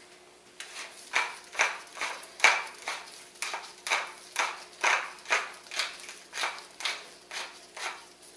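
Tall wooden pepper mill grinding black peppercorns, its head twisted in repeated strokes: a rasping crunch about twice a second, starting about half a second in.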